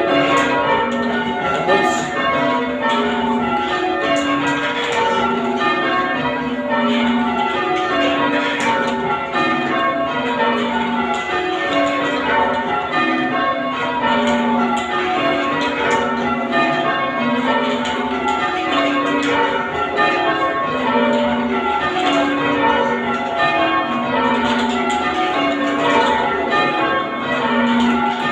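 The front six bells of a ring of eight church tower bells, rung full-circle in English change ringing, striking steadily in a repeating descending sequence of rounds.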